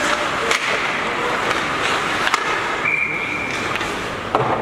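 Ice hockey play on a rink: skate blades scraping the ice under a steady arena hiss, with sharp clacks of sticks and puck, three of them standing out. A short high steady tone sounds a little before three seconds in.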